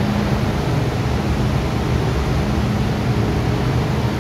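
MTR M-Train electric multiple unit moving slowly alongside a station platform, heard from inside the car: a steady rumble of wheels and running gear with a low hum.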